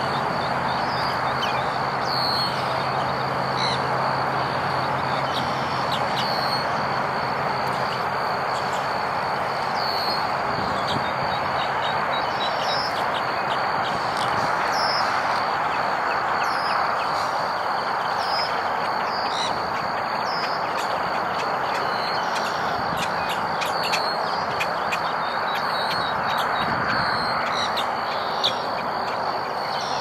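Many short, high bird chirps and calls over a steady rushing background noise, with a constant thin high tone throughout.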